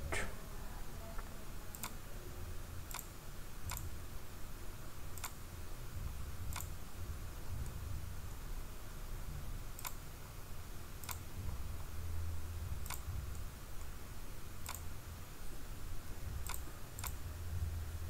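Computer mouse button clicking, about a dozen single clicks at uneven intervals of roughly a second, each one selecting another edge in CAD software, over a faint low hum.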